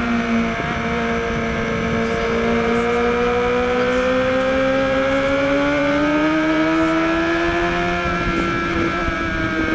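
2013 BMW HP4's inline-four engine pulling hard in second gear, its pitch climbing steadily from about two seconds in as the bike accelerates out of a corner onto the straight, then easing slightly near the end.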